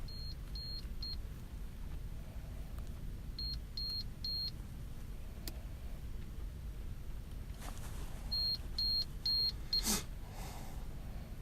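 Hearing-test tones: short, high-pitched pure beeps in groups of three or four, the groups a few seconds apart, over a steady low hum. A sharp click sounds near the end.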